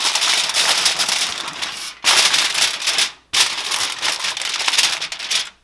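Aluminium foil crinkling and crackling as it is pressed and crimped over a glass baking dish, in three long stretches broken by a brief pause about two seconds in and another about three seconds in.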